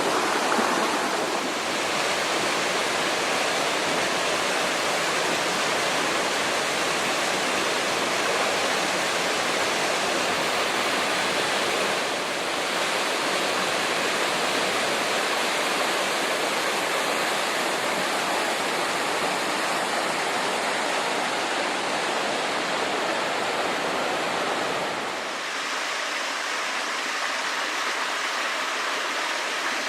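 Mountain stream rushing over rocks: a steady rush of water. Its tone shifts slightly a few times, and it loses its deep rumble about 25 seconds in.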